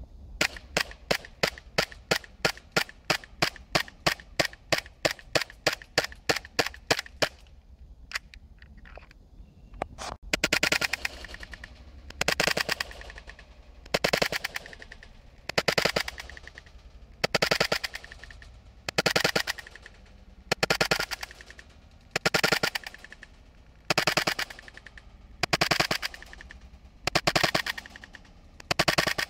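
CO2 blowback airsoft replica of the FN Five-seven pistol firing: a quick run of sharp shots, about three a second, for the first seven seconds or so. After a short pause come longer rattling bursts, each about half a second, repeating roughly every second and a half to two.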